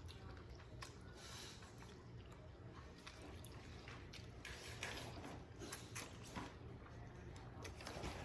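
Faint chewing and biting of Samyang 2X spicy instant noodles, with scattered short clicks over a low steady hum.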